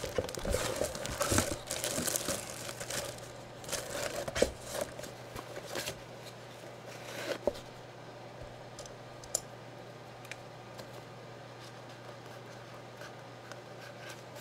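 A plastic jersey bag crinkling and a cardboard box being handled, with rustling and knocks for about the first six seconds. After that only faint scattered clicks sound over a steady low hum.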